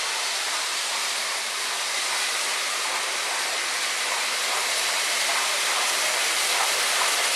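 Peppercorn A1 three-cylinder Pacific steam locomotive 60163 Tornado approaching at speed with a loaded train, a steady rushing hiss that grows slowly louder as it nears.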